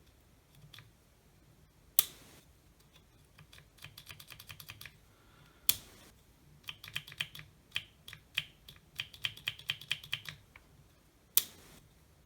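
Sharp plastic clicks and quick runs of light ticking as the Milwaukee SDS hammer drill is handled and tried. The motor never starts: the drill is still dead after its switch contacts were cleaned.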